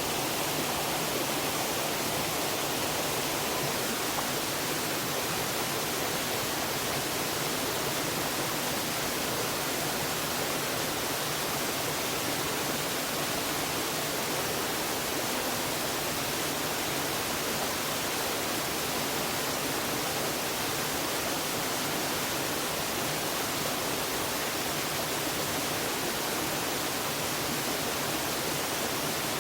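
Waterfall: an even, steady rush of falling water.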